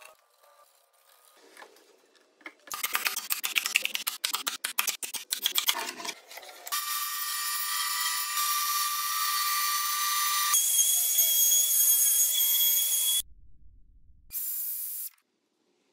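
Woodshop tools in quick succession: a few seconds of rapid clicking and rattling, then a bandsaw running steadily for about four seconds, then another steady machine sound that cuts off suddenly.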